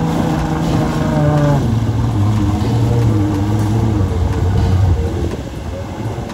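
Jeep Wrangler engine revving hard under load as it drives through deep mud and water, the revs rising and falling and then easing off about five seconds in.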